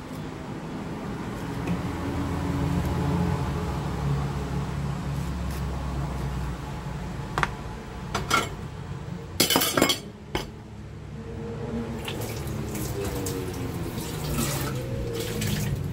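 Kitchen tap running into a stainless steel sink. There are a few sharp knocks about halfway through, the loudest a quick double knock, and near the end the water runs into a metal pot.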